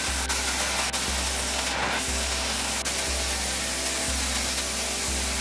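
The steady hiss of a bench belt sander running, its abrasive belt grinding a wooden axe-handle blank, with a brief louder rasp about two seconds in. Background music with a slow bass pattern plays over it.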